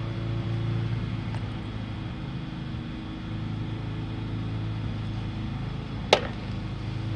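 An engine running steadily with an even low drone, with one short sharp sound about six seconds in.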